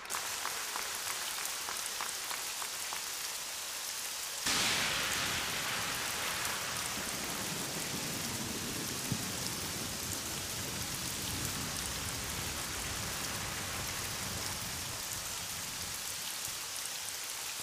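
Rain sound effect: a steady hiss of falling rain that grows heavier and fuller about four and a half seconds in.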